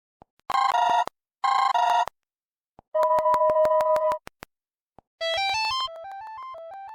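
Android phone ringtones played one after another: two short warbling electronic rings, then a held two-note electronic tone, then a quick synthesized melody stepping up and down that begins a little past five seconds. Sharp clicks fall between the tones.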